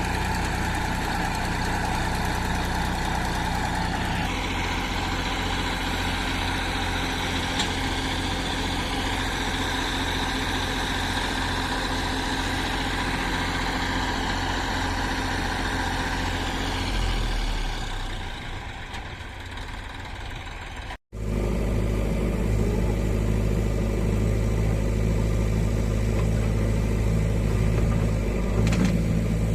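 Heavy-machinery diesel engine running steadily. Its note shifts about four seconds in and it eases off in the middle. It breaks off for an instant about two-thirds of the way through, then comes back louder and steady.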